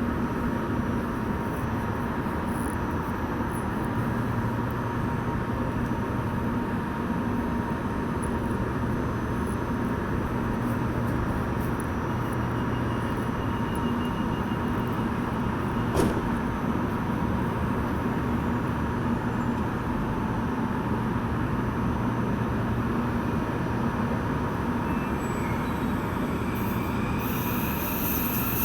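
Train running through the station with a steady rumble of wheels on rails. A single sharp click comes about halfway through, and a rising whine joins near the end.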